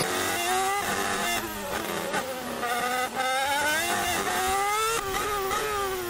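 Formula One car engine heard from the onboard camera, accelerating with a high-pitched note that climbs and then drops sharply at each of several upshifts.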